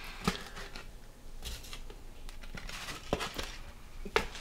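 Wooden chopsticks handling slightly frozen beef short ribs into a stainless steel pressure-cooker pot: a few light, separate clicks and knocks.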